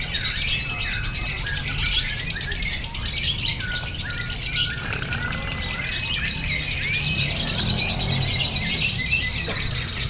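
Lovebirds chattering in a continuous, rapid, shrill stream, with several clear whistled glides from other birds and a steady low rumble underneath.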